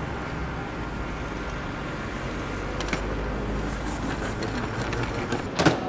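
Road case being wheeled on its casters across a tiled floor: a steady low rumble with scattered small knocks and one sharp clack near the end.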